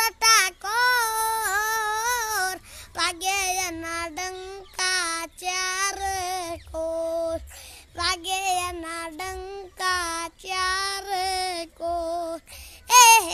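A child singing solo and unaccompanied in a high voice, short phrases with brief breaks between them and wavering, ornamented held notes.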